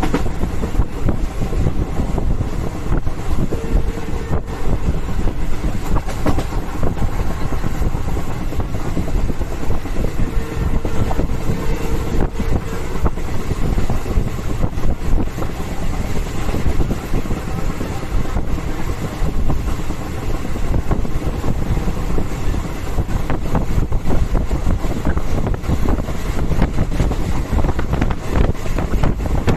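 Steady running noise of a moving passenger train heard from inside a carriage: a constant rumble and rush, with faint wheel clatter.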